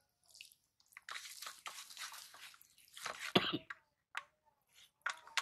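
A hand squeezing and mixing soft food over a steel plate: irregular wet squelches from about a second in, the loudest a little past the middle, then a few sharp clicks near the end.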